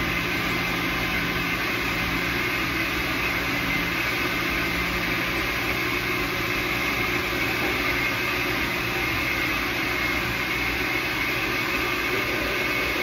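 Electric blender motor running steadily at full speed, grinding the ingredients for the birria sauce.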